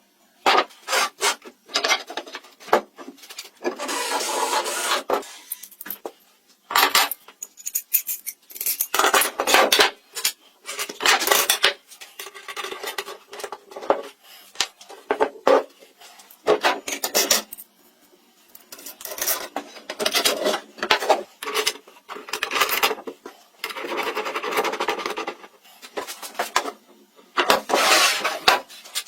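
Irregular rasping and scraping strokes, each lasting about a second or two with short pauses between, with occasional clinks, typical of hand-working wood.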